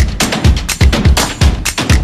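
Upbeat background music with a heavy, steady drum beat, about two beats a second.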